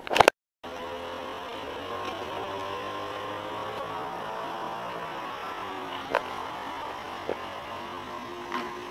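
Steady electrical-sounding hum with hiss and faint steady tones, broken by two sharp clicks about six and seven seconds in. It opens with a brief loud burst and an abrupt cut to silence.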